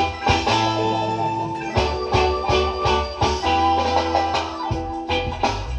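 Instrumental reggae music: a steady bass line and drum beat with keyboard and guitar.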